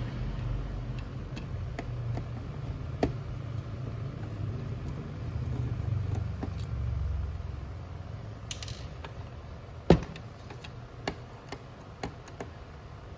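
Scattered clicks and knocks of a Toshiba e-STUDIO copier's plastic fuser unit being handled and a screwdriver set to its screws, the loudest a sharp click about ten seconds in, over a low rumble in the first half.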